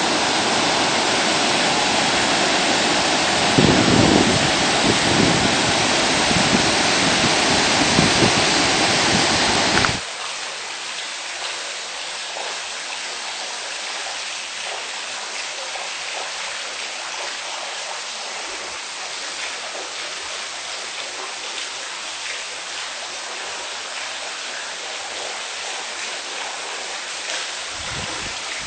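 Waterfall water rushing loud and full, with a few low thumps. About ten seconds in it cuts abruptly to the quieter, thinner rush of a flowing stream.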